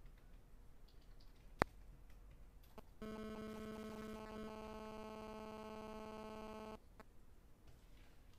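A single sharp click, then about a second and a half later an electronic buzzer sounds one steady, buzzy tone for nearly four seconds and cuts off suddenly.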